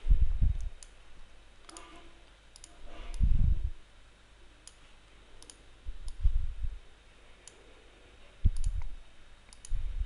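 Computer mouse clicking at irregular intervals as objects are dragged and linked on screen, with several louder dull low thumps in between.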